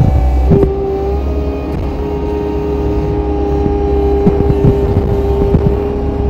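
Compact track loader's diesel engine running hard while working a hydraulic tree saw, with a steady whine that sets in about half a second in and holds. A few short knocks and cracks of brush against the machine come through it.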